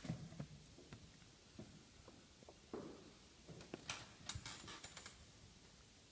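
Faint, scattered clicks and taps of chess pieces being set down and chess clock buttons being pressed during blitz games, with a quicker run of sharper clicks about four seconds in.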